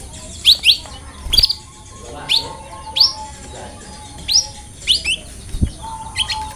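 Canary chirping: short, sharp chirps, single or in quick pairs, repeated about once or twice a second, over a faint steady hum.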